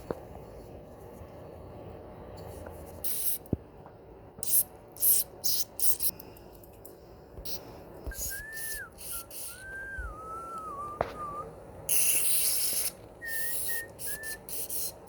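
A person whistles a few notes of a tune in the second half, between short, sharp hisses that come several times, the longest lasting about a second near the end.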